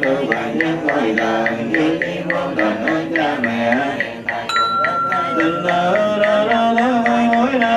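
A group of Buddhist monks chanting a sutra together in a steady recitation tone, kept in time by a regular knock about four times a second. About halfway through, a bell is struck once and rings on for about a second and a half.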